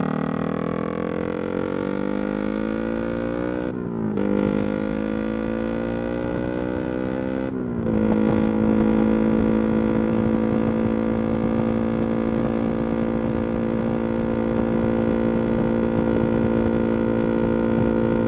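A road vehicle's engine pulling up through the gears. Its note rises, breaks off briefly about four seconds in for a gear change, rises again, and after a second change near eight seconds settles to a steady note at cruising speed, over road and wind noise.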